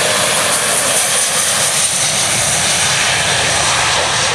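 E-3A Sentry's four TF33 turbofan jet engines at takeoff power as the aircraft rolls past on its takeoff run: a loud, steady jet roar with a high whine on top, strongest about a second in.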